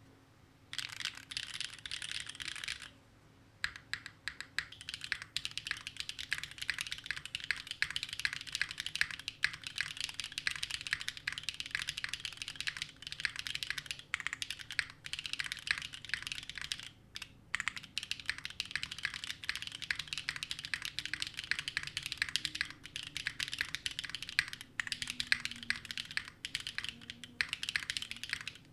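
Fast typing on a mechanical keyboard fitted with Gateron Sage linear switches, a steady stream of keystrokes with brief pauses about 3 seconds in and about 17 seconds in.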